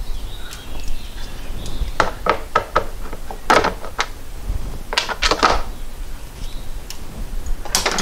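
A screwdriver and small screws clicking and clattering against the plastic housing of a small portable air compressor as its inner cover is unscrewed and lifted off: scattered light clicks in small clusters, every second or so.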